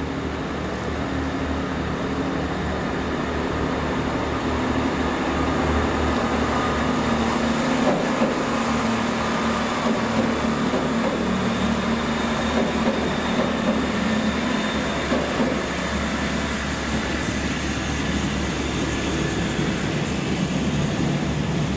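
Class 166 Networker Turbo diesel multiple unit pulling out of the station, its underfloor diesel engines working under power. The sound grows louder as the train passes through the middle and eases slightly toward the end.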